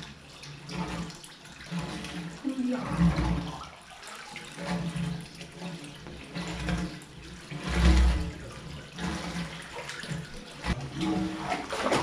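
Water lapping and sloshing in a hot-spring soaking pool as bathers move in it, with a few low thumps, the loudest about three and eight seconds in.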